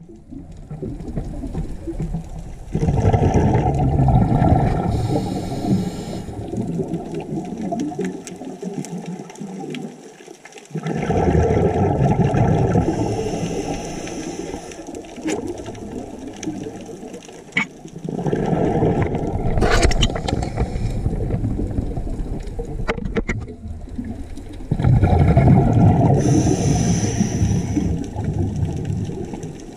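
Underwater bubbling and rushing water heard through a camera's underwater housing, in four long surges of several seconds each with short lulls between.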